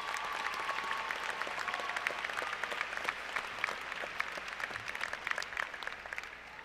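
Audience applauding, many hands clapping together, with a held whistle-like tone over it for the first couple of seconds; the clapping thins out near the end.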